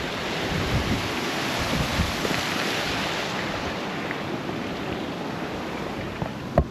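Wind buffeting the microphone in gusts over a steady rushing hiss, with a single sharp knock near the end.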